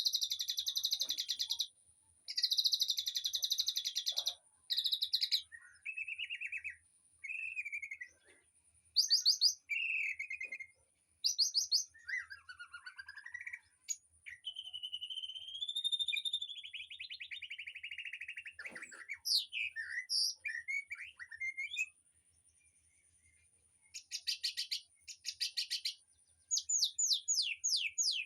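Songbirds singing in short, varied phrases: fast buzzy trills alternate with clear whistled notes and gliding calls. After a pause of about two seconds near the end, rapid trills start again.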